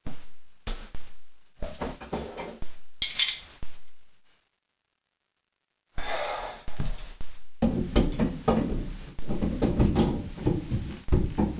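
Metal wrench clanking and knocking against pipes and fittings under a bathroom sink, in irregular strikes. The sound breaks off for about a second and a half midway, then comes back as busier clattering.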